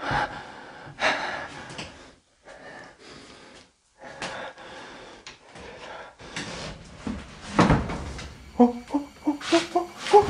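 Heavy, noisy breathing close to the microphone, with handling noise as the person moves. Near the end comes a quick run of short squeaks.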